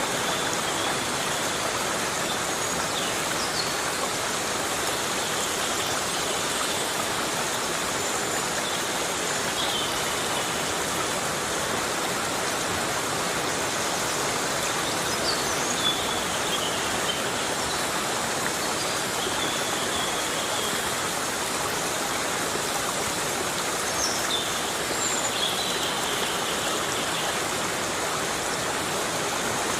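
Heavy rain falling steadily in a tropical forest: a dense, even hiss. A few faint high chirps come and go above it.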